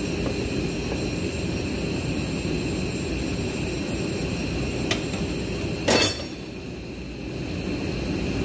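Steady loud roar in the background, with a faint click about five seconds in and a sharp metallic clink about a second later, from tools and metal parts handled during the teardown of a Nissan Sentra CVT transmission.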